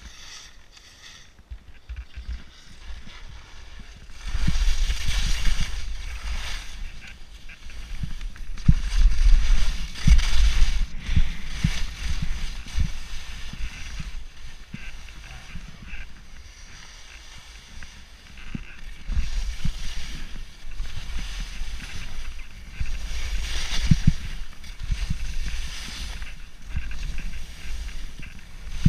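Skis sliding and scraping down a snow slope, a hiss that swells and fades with the turns, over a low rumble of wind buffeting the microphone. Quieter for the first few seconds, louder after.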